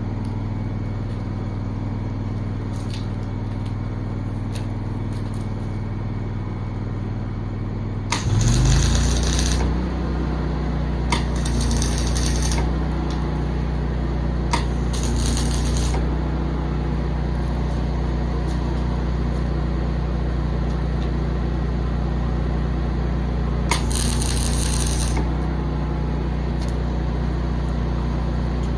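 Engine-driven welder running steadily, revving up about eight seconds in and holding the higher speed. Four short hissing bursts of arc welding come over it, each about a second long and opening with a sharp click.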